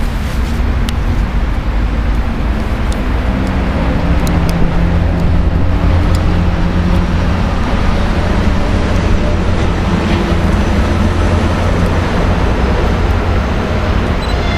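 Steady low rumble, with a faint hum that comes in about three seconds in and rises slightly in pitch: an EP1M electric locomotive approaching at a distance with a passenger train.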